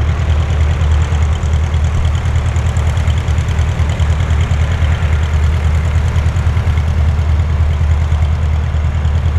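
SIAT 223 Flamingo's four-cylinder Lycoming piston engine and propeller at low power on approach and landing: a steady low drone with a fast, even pulsing.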